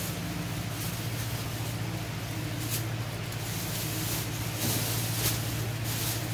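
A steady low hum under an even hiss, with a few brief faint clicks or rustles.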